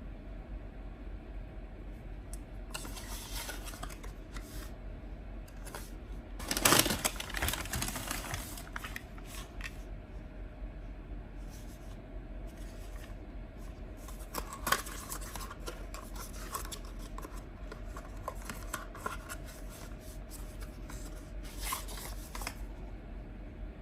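Hands handling and opening cosmetic product packaging: scattered rustling, scratching and tearing noises, loudest about seven seconds in, with a sharp click about halfway through.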